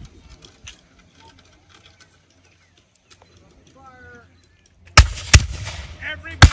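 Flintlock muskets firing: two sharp shots in quick succession about five seconds in, then a third about a second later, each with a short trailing echo. Faint voices are heard before the shots.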